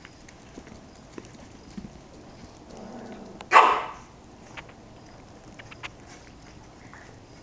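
Yorkshire terrier puppies scampering, their claws clicking and tapping on the floor, with one short, loud puppy bark about three and a half seconds in.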